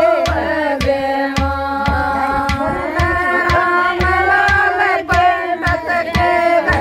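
Women's voices singing a Haryanvi folk bhajan together, accompanied by a steady beat of hand strokes on a clay water pot (ghara) played as a drum.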